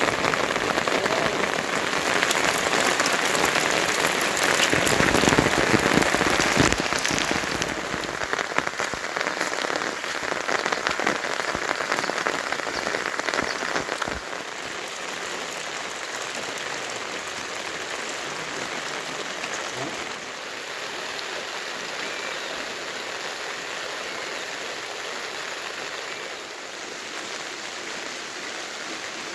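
Heavy rain falling and pattering on surfaces, with a dense scatter of drop impacts. It is loudest for the first half, then drops to a lighter, steadier level about halfway through.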